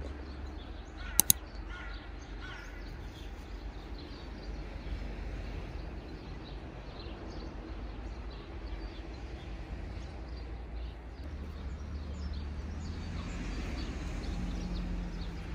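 Background ambience: a steady low rumble with two sharp clicks about a second in, and faint short high chirps scattered through it.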